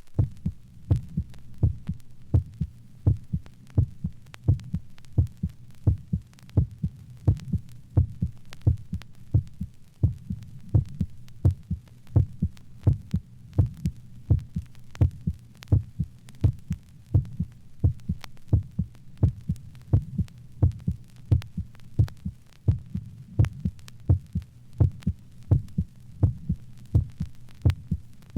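Heartbeat: a steady lub-dub of low, soft thuds in close pairs, a little over one pair a second, over a low hum.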